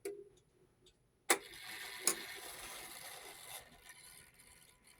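Howard Miller 31-day regulator wall clock's strike mechanism going off: a sharp strike about a second in and a softer one about a second later. The works run with a steady noise between and after them, stopping about three and a half seconds in. The strike is sluggish, a sign the clock needs oiling and that some parts have probably seized.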